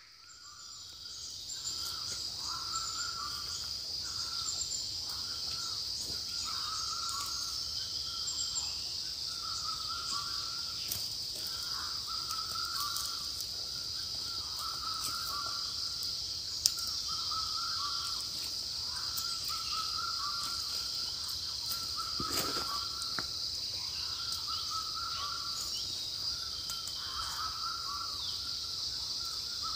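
A bird calling over and over, a short two-part call about every second and a half, over a steady high-pitched drone of insects. A single sharp click comes about two-thirds of the way in.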